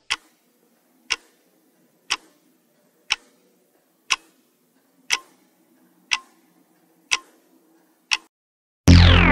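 Countdown timer sound effect: clock-like ticks, one per second, nine in a row. Near the end a loud, drawn-out sound effect with steeply falling pitch starts, marking time up.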